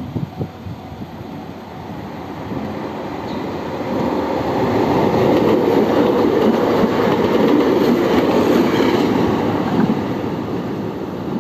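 Kobe Electric Railway 1100 series electric train passing close by: a few sharp knocks at the start, then the rumble and clatter of the train on the rails builds, stays loud for several seconds and eases off near the end.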